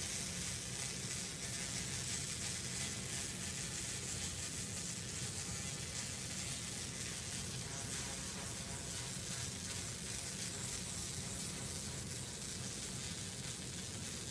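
Pulsed laser cleaning granite: the beam ablating the stone surface with a steady, dense crackling hiss, which cuts off suddenly near the end as the laser stops firing.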